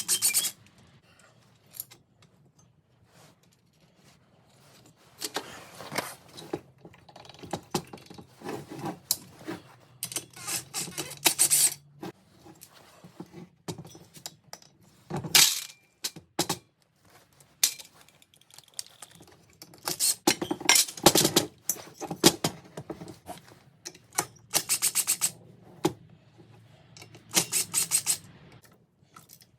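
Hand tools and small metal parts clinking and rattling in irregular clusters with quiet gaps, the handling sounds of working on a two-stroke backpack blower's top end.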